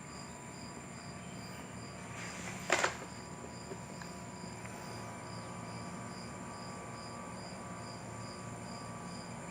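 Insects chirping in a steady, even pulse throughout. A short, loud, noisy sound breaks in a little under three seconds in.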